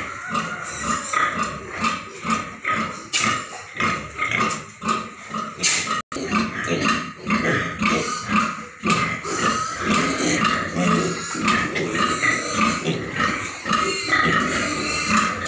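Domestic pigs, sows and piglets, making a dense, continuous run of short overlapping grunts and calls. The sound cuts out for an instant about six seconds in.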